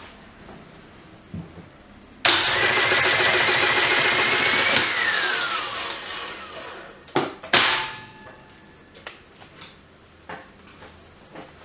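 An electric motor on the air circuit breaker, most likely its spring-charging motor, starts abruptly and runs loudly for about two and a half seconds. It then cuts out, and its pitch falls as it winds down. Two sharp mechanical clacks follow about two seconds later, half a second apart.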